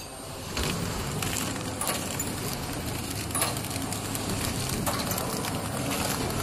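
Pillow bag flow-wrap packing machine starting up about half a second in and running steadily, wrapping face masks in film, with a hum and a regular click about every three quarters of a second.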